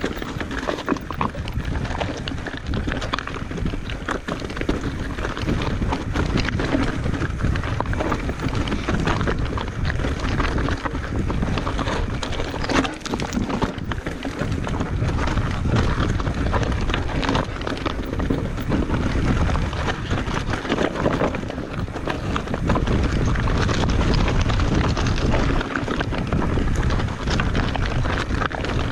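Commencal Meta Trail 29 mountain bike riding down a rocky trail: tyres and bike rattling and knocking over rocks in a constant stream of small impacts, under steady wind noise on the microphone.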